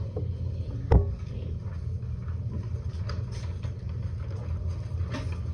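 Steady low hum of a quiet classroom, with one sharp knock about a second in and faint scattered small taps.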